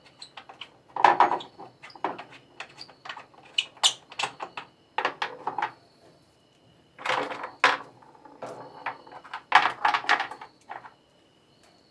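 Irregular metallic clanks, knocks and scrapes of tools and metal parts being handled on a top-loading washing machine under repair, in clusters with short pauses between them.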